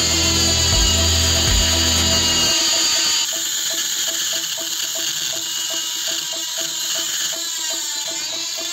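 Handheld rotary grinder with a burr cutting into a steel plate, a steady high whine; the heavy low hum drops away about two and a half seconds in. Background music with a steady beat runs under it.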